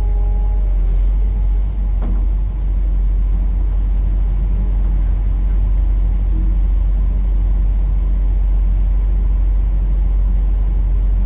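Excavator's diesel engine running steadily with a deep, even rumble, heard from inside the cab while the machine is still cold.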